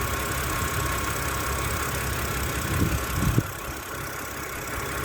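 BMW N52B25 2.5-litre inline-six engine idling, with the tick tick tick noise the owner puts down to the hydraulic lifters. Two short low thumps come about three seconds in.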